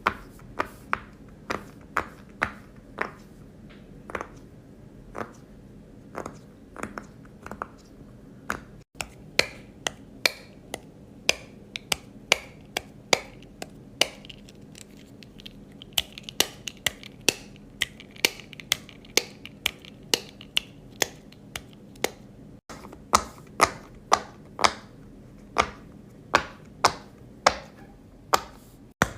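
Fidget toy bubbles being pressed and popped by hand, a long run of sharp single pops, roughly one to three a second.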